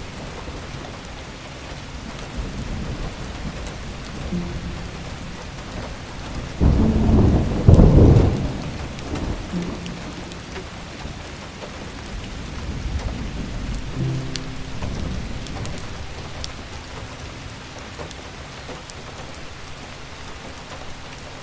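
Steady rain falling, with one rumble of thunder about seven seconds in, the loudest sound, lasting around two seconds. Soft background music notes come in faintly now and then.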